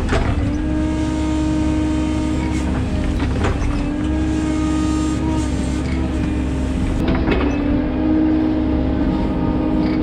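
13-ton excavator's diesel engine running under load with a steady hydraulic whine that swells and eases as the arm works, and a few sharp knocks as the bucket presses into the soil heap.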